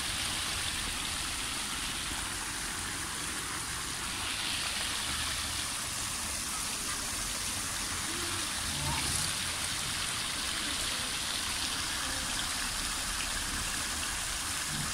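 Garden fountain: many thin jets of water spraying and splashing into a stone basin with a steady rushing patter.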